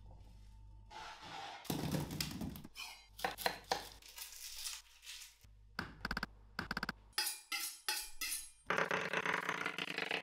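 Kitchen handling sounds on a wooden cutting board: a string of separate knocks, thunks and crackles as onions are set down and handled. Near the end a fast, continuous run of chef's-knife cuts starts as the onions are sliced on the board.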